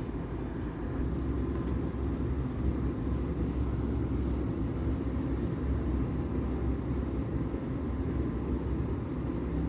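Water pouring from a steel vessel into a hot kadai of jackfruit pieces fried in ghee, a steady low rushing.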